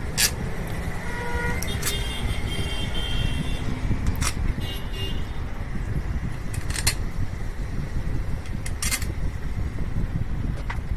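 Sharp metallic clinks of hand tools on scooter engine parts during engine assembly, about half a dozen, spaced a second or two apart, over a steady low rumble.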